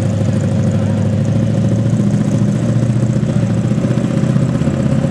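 Pulling truck's engine running loud and steady at a constant speed, with no revving up or down, at the end of a sled pull.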